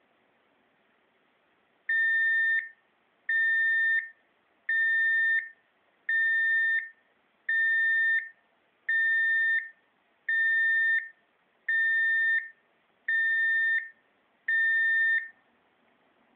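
Belvar RKSB-104 radiation dosimeter's beeper sounding ten evenly spaced high-pitched beeps, each a little under a second long and about one and a half seconds apart, starting about two seconds in.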